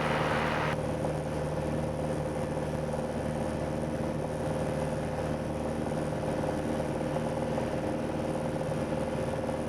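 Light single-engine aircraft's four-cylinder Lycoming engine and propeller droning steadily in cruise at a reduced power setting of about 2,100 RPM. A hiss over it cuts off suddenly about a second in.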